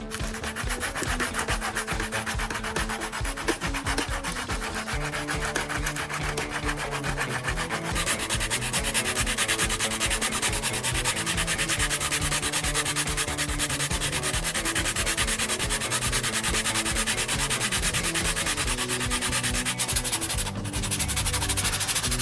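Sanding of repaired car plastic: a steady, fast, rasping scrape that runs on with a short break about twenty seconds in.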